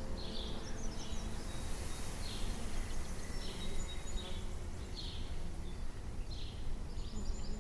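Outdoor background: a steady low rumble with short high chirps from a small bird repeating about once a second.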